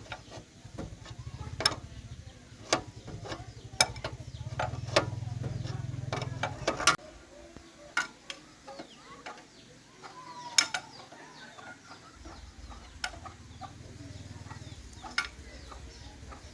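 A series of sharp taps and knocks, roughly one a second, over a low steady hum that stops about seven seconds in and comes back a few seconds before the end.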